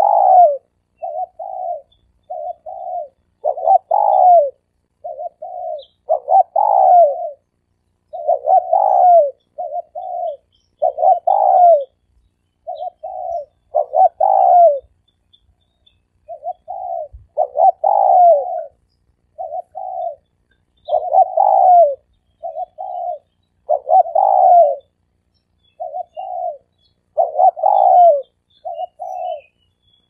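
Spotted dove cooing over and over, each phrase a short coo followed by a longer falling coo, repeated about every two to three seconds.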